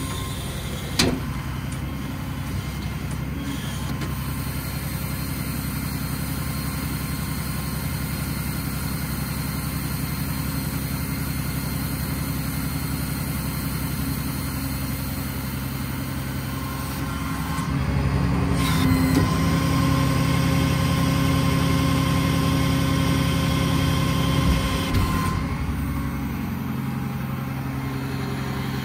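Ram 5500's 6.7-litre Cummins turbodiesel running at a raised idle to drive the truck's hydraulics. From about 18 to 25 seconds in it gets louder, with a steady added whine, the hydraulic system working under load as the outrigger is operated.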